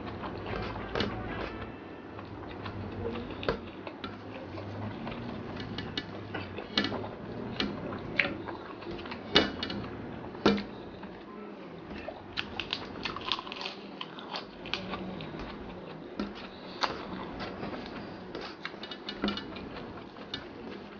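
Close-miked mouth sounds of a person eating rice and fried egg by hand: chewing with irregular wet smacking clicks, a few sharper ones about halfway through.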